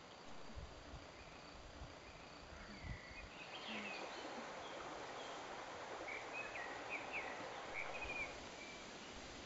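Quiet outdoor ambience: a steady hiss with small birds chirping in short calls, in a cluster about four seconds in and again several times near the end. A few soft low thumps come in the first three seconds.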